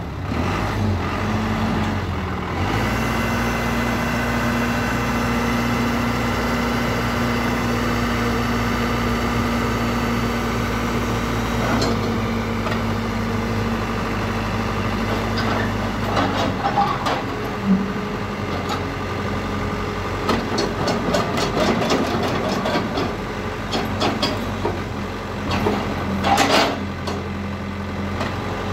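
Komatsu WB93R-2 backhoe loader's diesel engine running steadily, picking up speed slightly about two seconds in as the front loader arm lifts the bucket. Through the second half come irregular clicks and knocks, loudest near the end.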